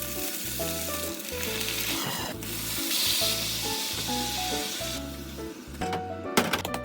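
Food sizzling as it fries in oil in a pan, the hiss swelling around the middle, over background music; a few sharp clatters near the end.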